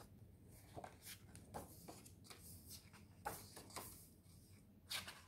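Faint rustling and soft taps of a paper picture book being opened and its pages handled, a few short rustles spread through otherwise near silence.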